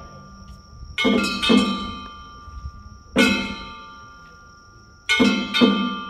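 Festival percussion for a Nagasaki Kunchi boat float, a gong with a drum, struck in a slow pattern of two strokes, one, then two. Each stroke rings on and dies away.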